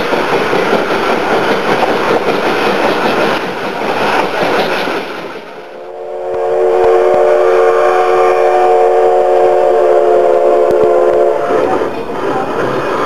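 Narrow-gauge train rolling with coach and wheel rattle, then, after a brief dip, a steam locomotive whistle sounding one steady blast of about five seconds, several notes at once.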